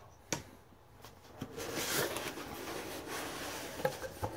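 Cardboard shipping box being handled and opened: a sharp knock about a third of a second in, then rustling and scraping of cardboard, with a few knocks near the end.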